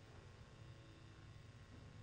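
Near silence: room tone with a faint low rumble.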